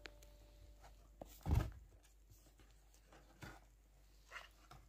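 Kittens playing with a paper gift bag and ribbon on a sofa cushion: a few soft thumps and rustles, the loudest about a second and a half in.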